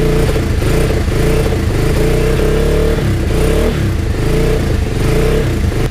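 Lexmoto XTR 125's single-cylinder four-stroke engine running just after starting, revved up and down with the throttle and dropping back toward idle near the end. The carburettor is flooding, dripping petrol, which the owner puts down to a float stuck open.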